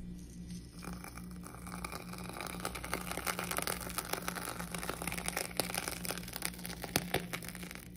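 Whipped body butter squeezed from a piping bag into a jar: a dense run of fine crackles and squishes, starting about a second in.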